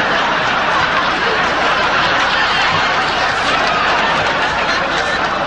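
A large audience laughing loudly at a joke's punchline, a steady unbroken wave of laughter.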